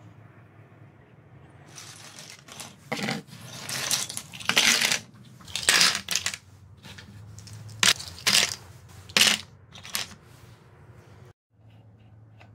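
Plastic bottle caps clattering against each other and a glass bowl as a hand stirs and picks through them, in a series of sharp rattling bursts lasting about eight seconds.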